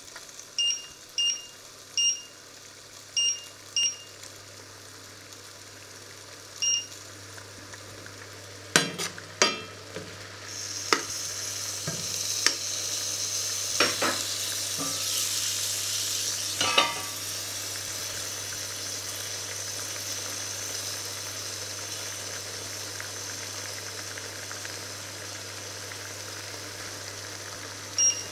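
A string of short electronic beeps from an induction hob's touch controls as the power is set, then a few knocks of the pan being moved and stirred. From about ten seconds in, radishes in butter and liquid in a black steel pan start sizzling, a steady frying hiss that carries on as the pan heats. One more beep near the end.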